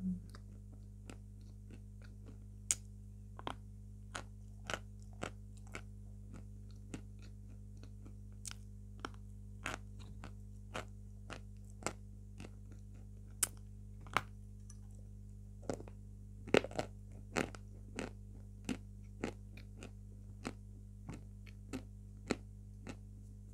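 A lump of edible chalk being bitten and chewed close to the microphone: crisp, irregular crunches about once or twice a second, closer together and louder in the second half.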